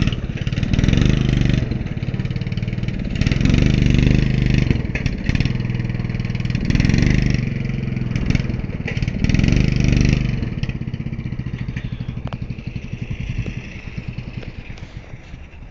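Riding lawnmower engine revved up about four times, each rev lasting a second or two. About ten seconds in it drops back to a lower, steadier running sound that fades. The owner calls it a belt problem.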